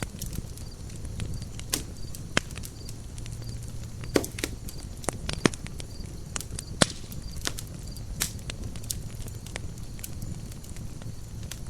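Campfire burning: a steady low rumble with sharp crackles and pops of burning wood scattered throughout, the loudest snaps about four to seven seconds in.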